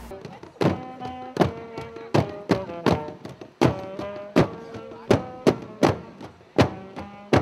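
Banda de couro drum band: several leather-headed, double-headed wooden drums beaten with sticks, sharp strokes roughly two a second in a loose festive rhythm, each stroke leaving a brief ringing tone.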